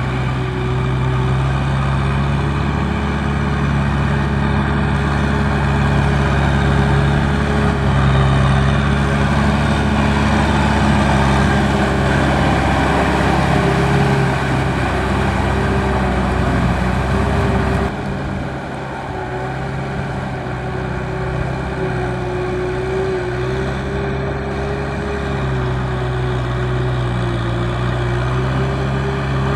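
Kubota M6040 tractor's diesel engine running steadily under light load as it pulls a loaded trailer through mud, with a slight drop in level about 18 seconds in.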